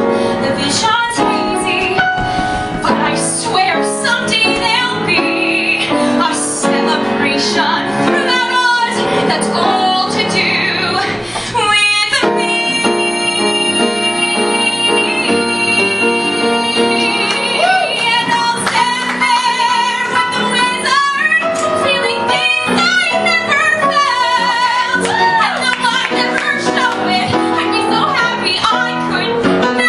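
A woman singing into a microphone with piano accompaniment, holding long notes with vibrato.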